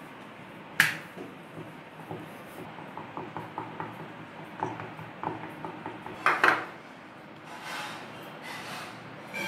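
Metal fork clicking and tapping as it pricks pizza dough on a wooden board, with a sharp knock about a second in and a louder clatter of cutlery after about six seconds. Near the end, a spoon scrapes softly as it spreads sauce over the dough.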